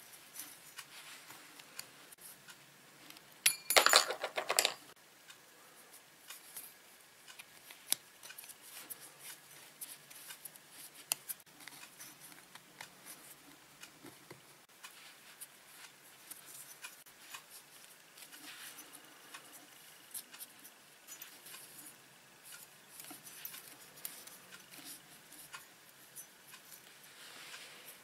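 Small metal clicks and scrapes of a piston ring being spread and worked around a two-stroke scooter piston by gloved hands, with a louder run of clicks lasting about a second, about four seconds in.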